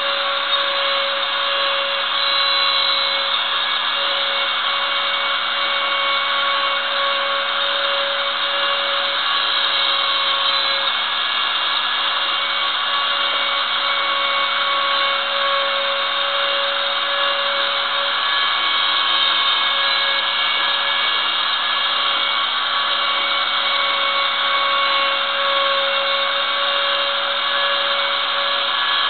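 Ooznest Ox CNC router's spindle running steadily with a high whine as a small bit carves lettering into a wooden plaque, the cut adding a dense rough noise.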